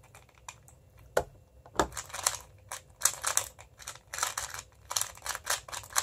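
MoFang Jiaoshi MF2S 2x2 speed cube turned rapidly during a speedsolve: quick bursts of plastic clicking and clacking from the layer turns. A single sharp click comes about a second in, just before the fast turning starts.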